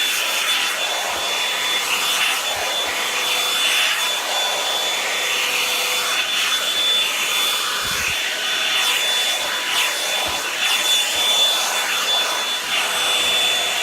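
Revlon hair dryer brush blowing steadily on its high setting, with a thin steady high whine from its motor over the rush of air.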